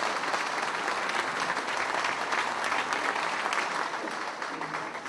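Audience applauding: many hands clapping in a dense patter that fades away near the end.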